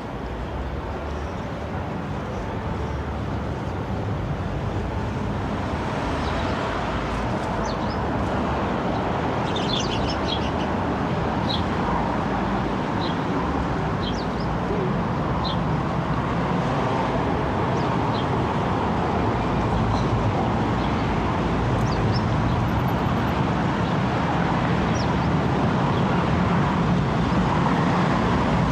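Steady hum of road traffic that grows gradually louder, with short bird chirps scattered through the middle.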